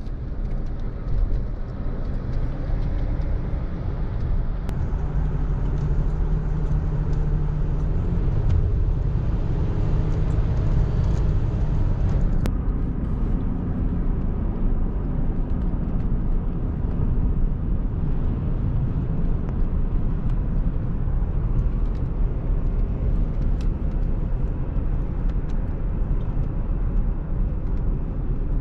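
Car driving, a steady low road-and-engine rumble with no change in pace.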